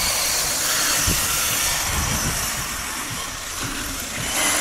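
Brushless electric RC buggy driving hard up a sand dune, its motor whining and its tyres spraying sand, over a steady hiss with irregular low rumbles.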